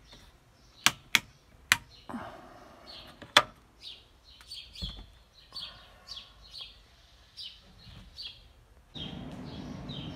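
Rocker switches on a camper's electrical switch panel flipped by hand: four sharp clicks in the first few seconds, over birds chirping.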